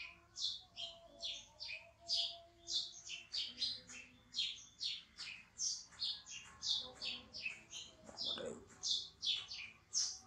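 An animal chirping rapidly at a high pitch, about three short chirps a second, with a brief rising squeal about eight seconds in.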